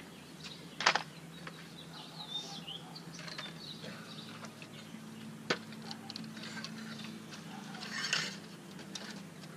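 A few sharp clicks and knocks as a metal-framed screen washer stand is handled and set up, with a short rustling burst near the end and faint bird chirps.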